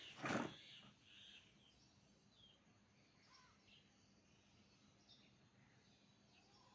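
A short thump or rustle just after the start, then faint, scattered short bird chirps over a quiet outdoor background.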